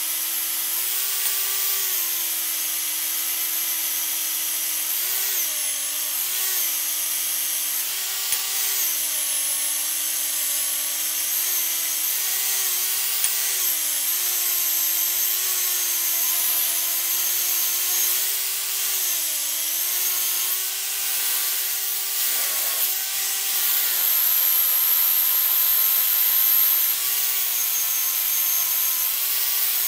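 Wire wheel on a handheld power tool spinning against the rusty end of an old vise screw, scrubbing the rust off. There is a steady motor whine that dips briefly in pitch several times, over the scratchy hiss of the wire bristles.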